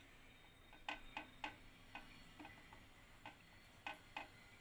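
Faint, irregular clicks of a spoon touching the plate while green chutney is spread on a slice of bread, about eight light ticks in four seconds.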